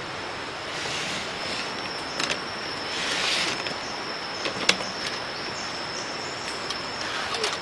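Outdoor ambience: a steady, high-pitched insect drone over a hissing rush of noise that swells twice, with a few sharp clicks.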